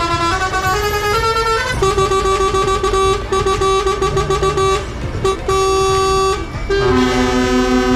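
Truck horns sounding over and over. At first they step between several pitches like a short tune, then give long honks with short breaks, and a lower horn pulses rapidly near the end.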